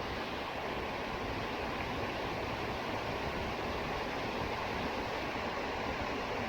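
Steady rushing of falling water, even and unbroken.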